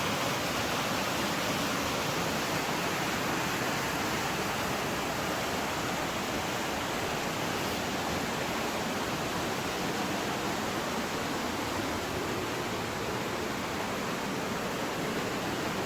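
Steady rushing of water from a nearby mountain stream, an even hiss-like roar with no change in level.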